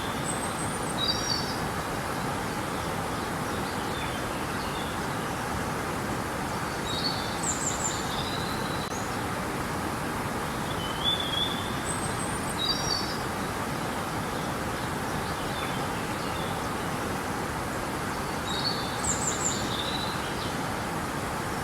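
Steady rush of flowing river water, with a small bird singing short, high chirping phrases over it several times.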